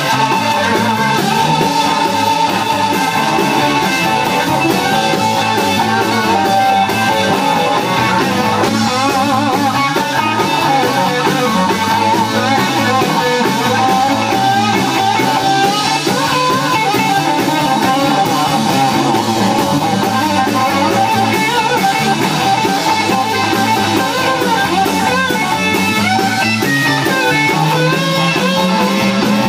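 Live rock band playing: electric guitar plays long, bending lead lines over electric bass and a drum kit.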